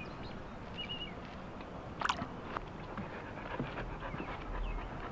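A dog, an American Bulldog–Boxer mix, gives a short falling whine about two seconds in, over faint outdoor ambience with a few bird chirps.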